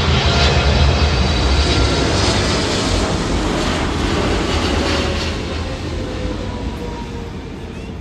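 Boeing 777 freighter's twin jet engines passing low overhead on final approach. A loud, dense engine noise with a deep rumble and faint whining tones that slide slowly down in pitch as it goes by, fading gradually toward the end.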